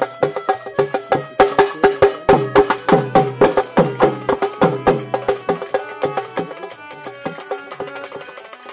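Fast traditional folk percussion music: rapid hand-drum strokes, some of them falling in pitch as they ring, with sharp wood-block-like clicks and a held note in the first couple of seconds. It gets somewhat quieter after about six seconds.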